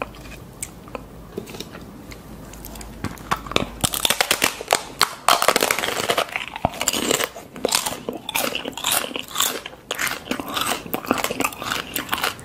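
Crisp, hollow puri shell dipped in curry sauce, then bitten and crunched close to the microphone, ASMR-style. A few light clicks come first; from about four seconds in comes a run of dense crunching and chewing, loudest soon after the bite.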